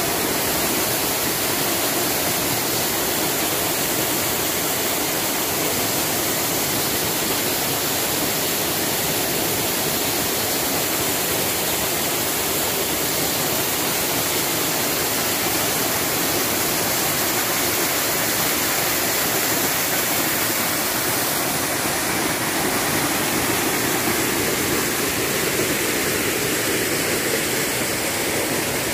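Waterfall and rocky stream rushing: a steady, even roar of falling and running water with no change in level.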